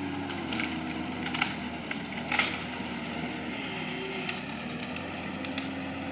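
Skid steer engine running steadily while wood cracks and snaps several times, the loudest crack about two and a half seconds in, as the machine pushes against a tree to bring it down.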